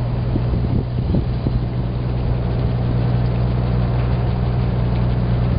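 Boat engine idling with a steady low hum, under rushing wind noise on the microphone.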